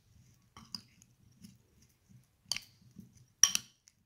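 A metal spoon stirring black olives coated in oil and spices in a ceramic bowl, clinking against the side of the bowl a few times. The loudest clinks come near the end.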